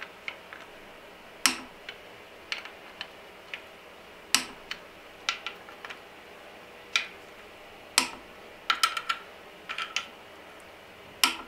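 Torque wrench and socket clicking on timing-cover bolts as they are torqued down. There are scattered sharp metallic clicks a second or more apart, then a few quick runs of clicks near the end.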